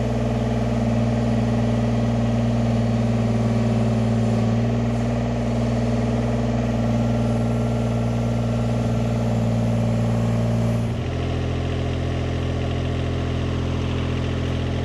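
Yanmar mini excavator's diesel engine running steadily at idle. Its tone drops slightly lower about eleven seconds in.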